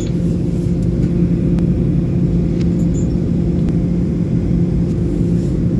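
Steady cabin noise of an airliner on its descent to land, heard from inside the cabin: the even rumble of the jet engines and airflow with a constant low hum, and a couple of faint clicks.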